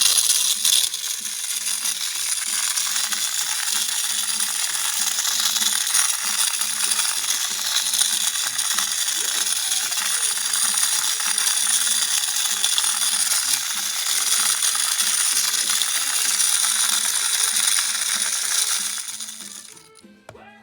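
ODISTAR AA-battery mini desktop vacuum cleaner running with a steady high whine, small bits of debris rattling and clicking through it as they are sucked up. It stops about nineteen seconds in.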